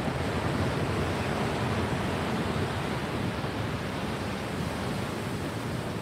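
Ocean surf breaking on a sandy beach: a steady, even wash of noise, with wind rumbling on the microphone.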